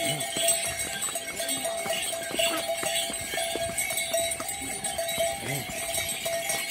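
Harness bells on a string of mules jingling and clanging over and over as the animals walk, with their hooves clicking on the stone path.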